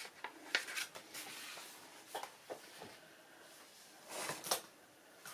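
Faint handling sounds: a few soft taps and rustles as small dolls house pieces and a porcelain doll are moved and set in place, the largest cluster about four seconds in.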